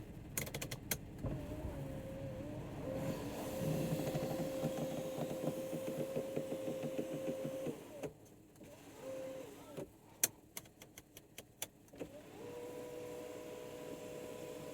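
Panoramic sunroof of a 2016 Volkswagen Touareg working: its electric motor runs with a steady whine and a crackling creak over it, stopping about eight seconds in. A short burst of motor, a run of sharp clicks, then the motor whine starts again near the end. The creaking is the unexplained roof noise the owner is trying to trace.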